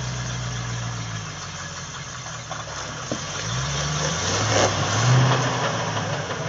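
Off-road 4x4's engine idling and then revving up twice while crawling over rocks.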